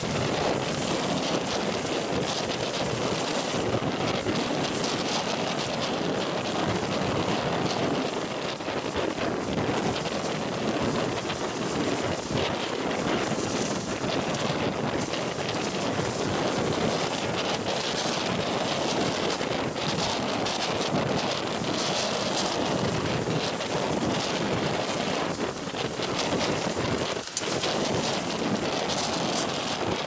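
Strong storm wind buffeting the microphone over the steady rush of heavy surf breaking against and washing over a stone harbour breakwater.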